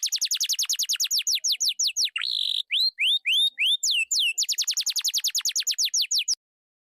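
High, rapid bird-like chirping: a fast run of descending chirps, about seven a second, broken near the middle by one harsher call and a few slower curved chirps, then cutting off suddenly near the end.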